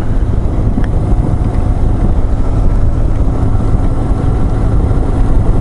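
BMW R1150GS boxer-twin engine running steadily at cruising speed, under a loud rush of wind on the helmet-mounted microphone.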